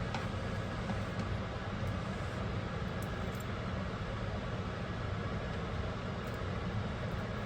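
A steady low rumbling hum with no clear events, like a motor or fan running.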